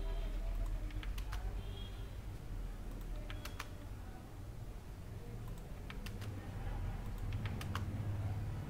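Computer keyboard keys pressed in short runs with pauses between, as text is edited line by line, over a low steady hum.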